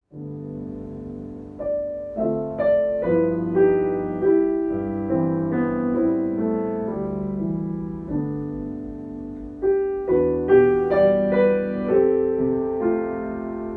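Slow, gentle piano music: chords and melody notes struck and left to ring.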